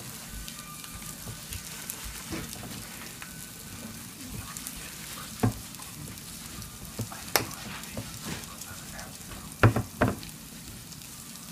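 Steady crackling sizzle of hot food, with a few sharp knocks as the plate is wiped and handled, the loudest two close together near the end.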